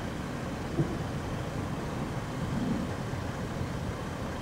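Steady low rumble of a car idling, heard from inside the cabin, with a brief knock about a second in.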